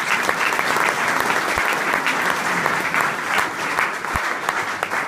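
Audience applauding, a steady crowd of hands clapping in a hall, beginning to thin out near the end.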